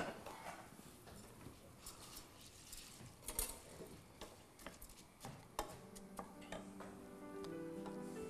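Wooden spoon stirring rice in a stainless-steel pot, faint scattered taps and scrapes against the pot. Soft background music comes in about six seconds in.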